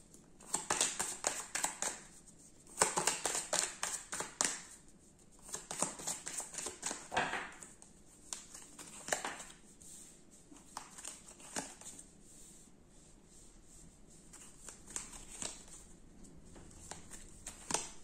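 A deck of tarot or oracle cards being shuffled by hand: dense bursts of card rustle and clicks during the first eight seconds, then scattered light clicks as cards are handled.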